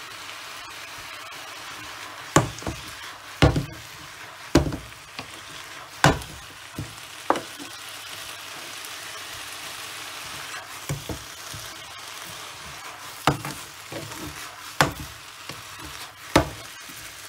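Noodles and pak choi sizzling steadily in a hot frying pan, with a wooden spatula knocking sharply against the pan about a dozen times, irregularly every second or two, as the stir-fry is stirred and tossed.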